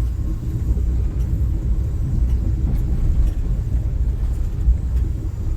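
Steady low rumble of a moving car.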